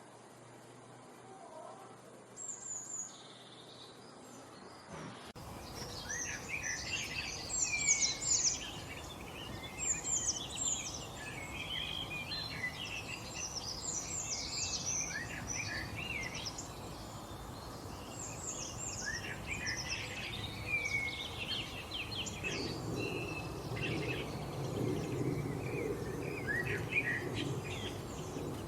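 Wild songbirds chirping and singing: a few sparse high calls at first, then, after an abrupt change about five seconds in, a busy chorus of many overlapping chirps and warbles over steady background noise. A low steady noise rises under the birds near the end.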